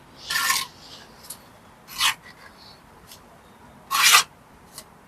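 A bricklaying trowel scraping wet mortar against brick in three short strokes, about two seconds apart, with faint ticks between them.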